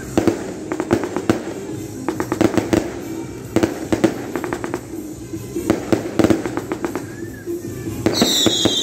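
Firecrackers going off in rapid clusters of sharp bangs, with music playing underneath. Near the end a high whistle slides down in pitch.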